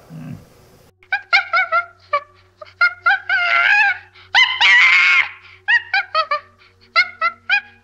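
High-pitched animal calls: quick runs of short sharp calls, three or four at a time, with two longer wavering squeals in the middle.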